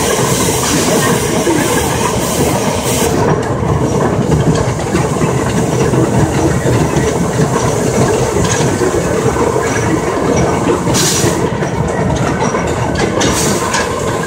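Climax geared steam locomotive working along close by, a dense clatter of its exhaust and running gear with wheels on the rails, and a hiss of steam that fades about three seconds in. Two short bursts of steam hiss come near the end.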